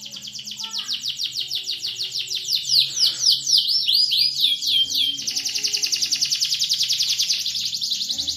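Domestic canary singing a long run of rapid repeated notes. About two and a half seconds in it changes to slower, downward-sweeping notes, then about five seconds in to a fast, even trill.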